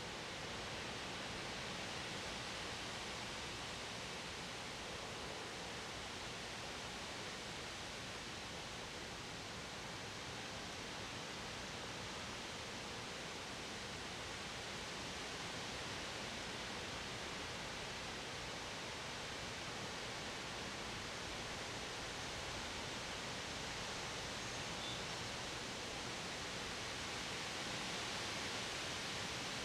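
Wind blowing steadily, an even rushing hiss without gusts or breaks.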